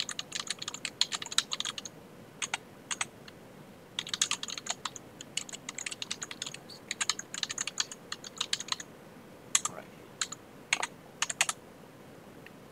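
Typing on a computer keyboard: quick runs of keystrokes broken by short pauses, with a few separate, louder clicks in the second half.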